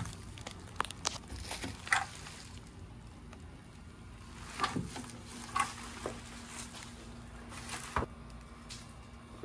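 Bubble wrap and plastic packaging crinkling and rustling now and then as a light bar is unwrapped and handled, with a sharp knock near the end.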